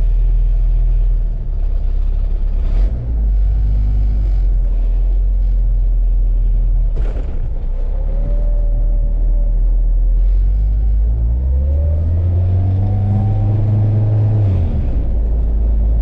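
Honda K-series engine in a swapped Civic EF sedan, heard from inside the cabin while driving: a steady low rumble, with a sharp knock about seven seconds in. Later the engine pitch climbs under acceleration and then drops away suddenly near the end.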